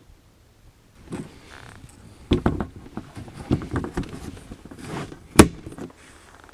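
An oar being fitted into the plastic oarlock on an inflatable boat's tube: a run of knocks and clatters of the oar shaft against the oarlock and boat, with one sharp snap about five seconds in, the loudest sound.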